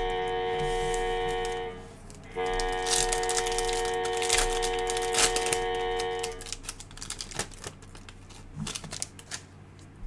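Foil wrapper of a Donruss Optic basketball card pack being torn open and crinkled, then the cards clicking and sliding against each other as they are handled. Background music of held chords plays under it, dropping out briefly about two seconds in and stopping about six seconds in.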